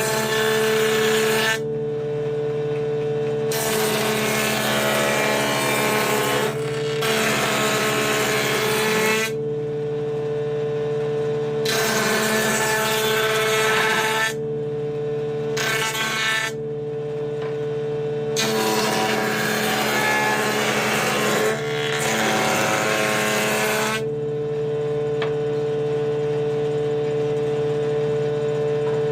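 Wood planer machine fitted with a door-panel cutter bit, its motor running at a steady whine. About seven cutting passes of two to three seconds each break in on top of it, loud and rasping, as the wood is fed across the spinning cutter.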